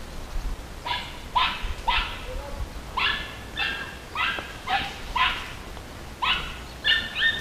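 Hunting dog barking in a steady run of short, high yelps, about one every half second.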